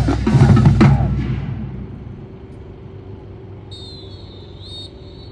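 Marching band playing a loud full-ensemble passage that cuts off about a second in and rings away. A quiet low note is left held, and a thin, high, wavering tone comes in near the end.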